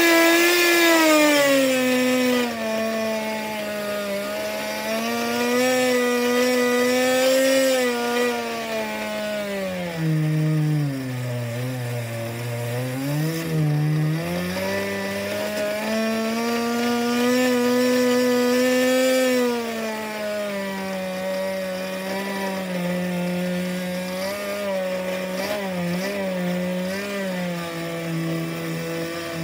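Pro .15 two-stroke nitro glow engine running on a bench with its throttle worked by hand. Its speed rises and falls, dropping to a low idle about ten seconds in, picking back up, then settling lower again near the end.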